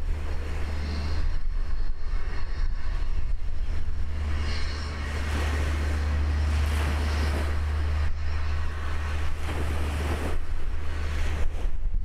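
Water splashing for a few seconds about halfway through as a backhoe dredger's bucket plunges into the sea, with a shorter splash near the end, over a steady low rumble.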